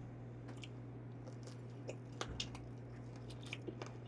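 Close-up chewing of a mouthful of raw fermented skate: soft, wet, irregular clicks and squishes, over a steady low hum.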